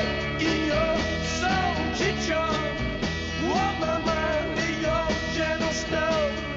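Rock-and-roll song with a singer's voice over a band accompaniment.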